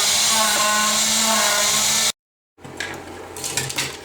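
Desktop CNC milling machine running with its dust vacuum: a loud steady hiss under motor whines that shift in pitch, cut off abruptly about two seconds in. Then come light plastic clicks and knocks as jointed Loc-Line hose segments are handled.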